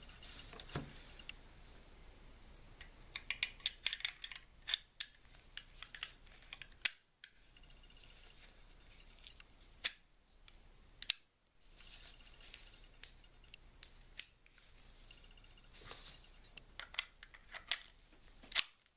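Light metallic clicks and clacks from the small steel parts of a Beretta 950BS Minx .22 Short pocket pistol as its slide and tip-up barrel are fitted back onto the frame. The clicks come in clusters, with the sharpest one near the end.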